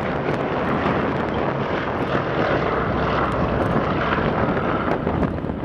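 Boeing B-17G Flying Fortress's four Wright R-1820 Cyclone radial engines and propellers at takeoff power as the bomber climbs out just after liftoff: a steady propeller-engine drone.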